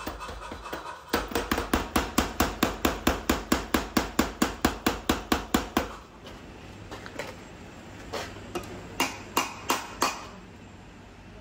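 Hammer blows on steel being forged: a fast, even run of about five strikes a second for roughly five seconds, then a handful of slower, separate blows.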